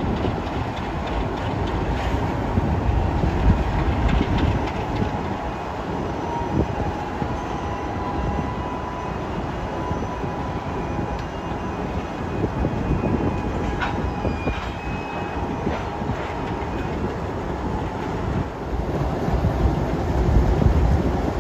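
Alco diesel locomotives, C424 No. 2409 among them, rolling past at the head of a freight train: a steady low engine rumble, wheels clicking over rail joints, and now and then a faint, thin, high wheel squeal. The low rumble swells near the end.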